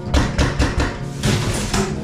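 Background music with held tones, with several sharp knocks at irregular intervals mixed in.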